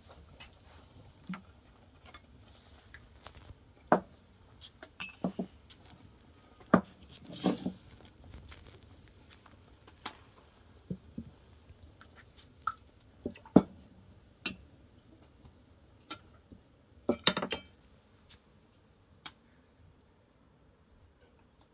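Kitchen work sounds: scattered sharp knocks and clinks of cookware and utensils being handled and set down, at irregular intervals, with a short clatter twice.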